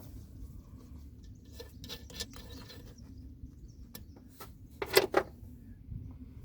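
Light metallic clicks and clinks of hand tools and fittings being worked on LPG system parts, with two sharp clicks about five seconds in, over a low steady hum.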